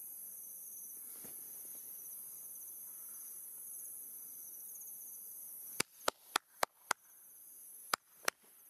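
Insects trilling in a steady, high, pulsing chorus. About two-thirds of the way in, a run of sharp clicks cuts in, six in about a second and then two more, after which the insect sound drops away and slowly comes back.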